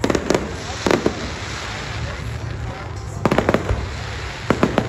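Fireworks exploding in sharp bangs and cracks: a couple near the start, one about a second in, a quick cluster a little past three seconds, and three more close together near the end.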